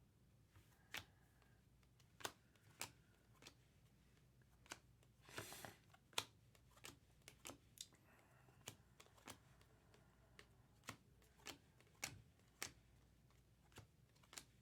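Trading cards being handled and flipped through one by one: faint, irregular light clicks of card stock, with a brief rustle about five and a half seconds in.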